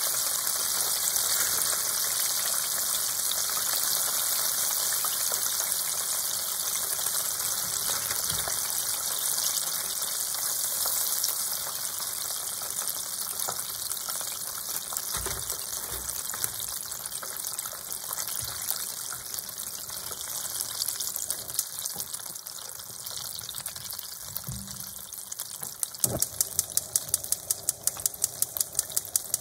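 Chicken pieces deep-frying in hot oil: a steady sizzle that grows gradually quieter, with a few low thumps. Near the end a fast, even run of sharp crackling ticks sets in over the sizzle.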